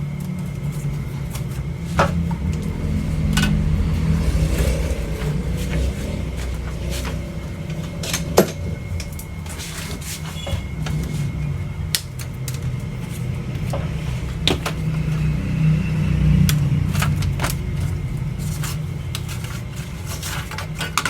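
Scattered light clicks and knocks from hands handling parts of an opened LED TV and its crushed speaker, over a steady low hum.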